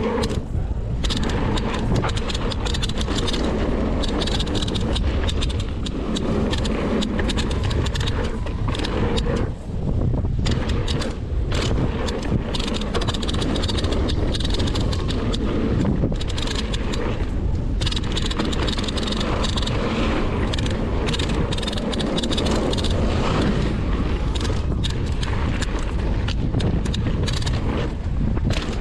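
Mountain bike ridden fast down a dirt trail: tyres rumbling over the ground, wind buffeting the microphone, and frequent clicks and rattles from the bike over bumps.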